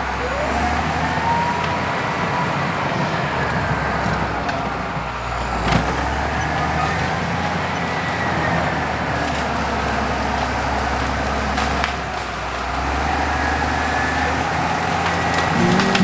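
CAT D6 bulldozer's diesel engine running steadily under load, with a faint whine that rises and falls in pitch. A single sharp crack comes about six seconds in.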